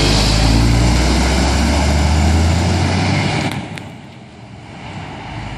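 Scania 124 420 truck with an open sidepipe exhaust pulling away, its deep engine note loud and steady before falling away quickly about three seconds in as it drives off. A brief click comes just after.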